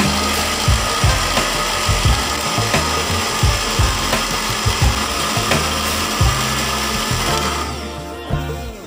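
Electric countertop blender running at speed, whipping an egg-yolk mixture into a froth. Its motor runs steadily, then dies away about a second before the end as it is switched off.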